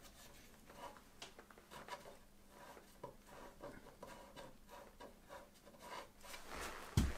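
A thin wooden stick scraping and rubbing a sawdust-and-carrier-gel filler into gaps in an old wooden table rail: faint short scratchy strokes and light ticks. A low thump comes near the end.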